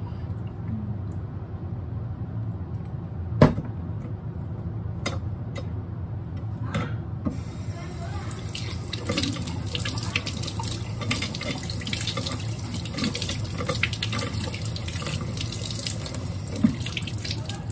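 A few sharp knocks and clicks of handling, the loudest about three seconds in. Then, about seven seconds in, the kitchen faucet comes on and water runs steadily from the spout, splashing over hands rinsed beneath it.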